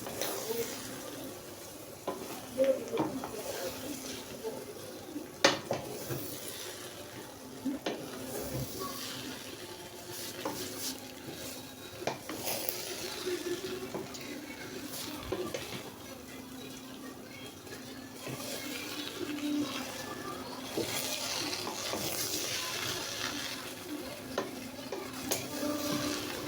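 A spoon stirring fried rice in a pot over the heat, scraping with a light sizzle, with occasional sharp clinks of the spoon against the pot. A steady hum runs underneath.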